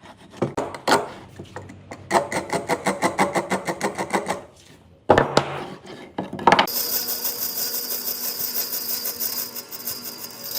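Woodworking power tools: a few clicks, then a fast mechanical rattle of about ten strokes a second for a couple of seconds. After that a power tool runs steadily with a high hiss.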